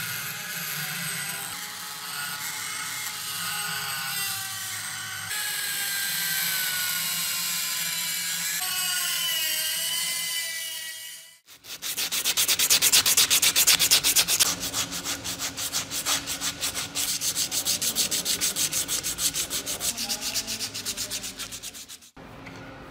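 A handheld rotary tool spinning an abrasive stone inside the eye of a steel hammer head, its pitch wavering as it loads. About eleven seconds in, it gives way to a strip of sandpaper pulled rapidly back and forth through the eye, several strokes a second and louder.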